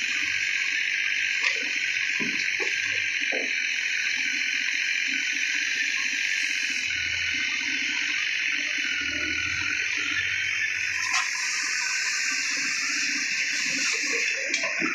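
A steady loud hiss over the faint low rumble of a mini excavator's diesel engine, with a few light knocks in the first few seconds as debris is handled.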